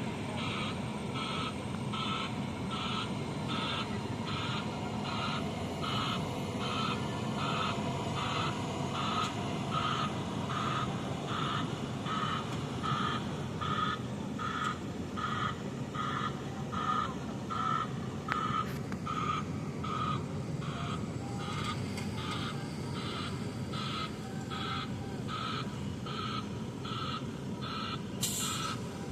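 Heavy vehicle's reversing alarm beeping steadily, about two beeps a second, over the running of its diesel engine. A short hiss comes near the end.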